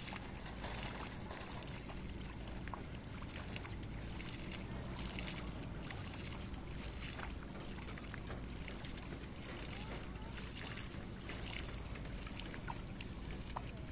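Water splashing and sloshing in short bursts, about one a second, as a rope is hauled hand over hand through shallow water. A steady low hum runs underneath.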